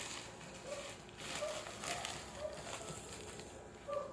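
Rustling and light handling noises as items are taken from an opened parcel, with a few faint short tones.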